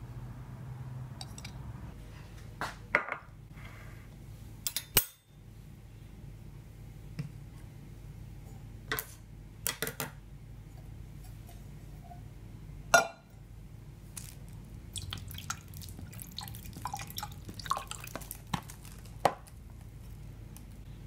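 Tableware handled on a countertop: a metal spoon clinking and scraping in a ceramic bowl, and scissors and a mug set down, heard as scattered sharp clicks and knocks. The loudest knock comes about thirteen seconds in.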